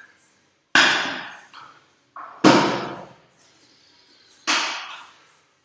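Loaded barbell with bumper plates set down on the gym floor three times, about every two seconds, during deadlift reps. Each landing is a sudden thud that dies away over about half a second.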